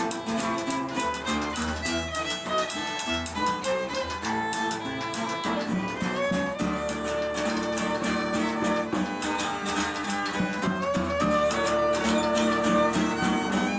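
Instrumental music with a violin playing the melody over plucked guitar strings and a steady rhythm.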